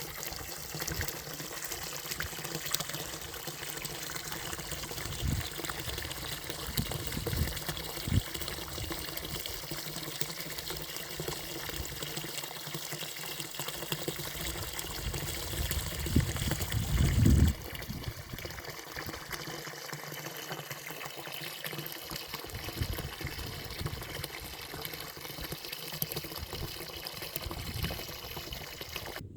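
Water trickling and flowing steadily, as in a small stream, with a few low thumps and a brief low rumble a little past halfway.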